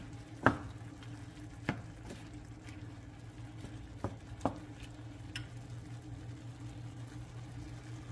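Wooden spatula stirring ground pork and onion as it fries in a non-stick pan, with several sharp knocks of the spatula against the pan, the loudest about half a second in. A low steady hum runs underneath.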